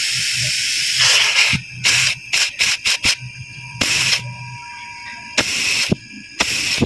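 Upright freezer compressor running with a faint low hum while gas blows out of the cut copper discharge line. A steady hiss for the first second and a half gives way to a string of short hissing bursts as a thumb covers and uncovers the tube end, a test of how strongly the compressor pumps.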